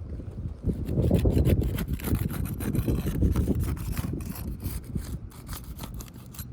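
Irregular scraping and rubbing with many small clicks, from hands and tools working against asphalt roof shingles.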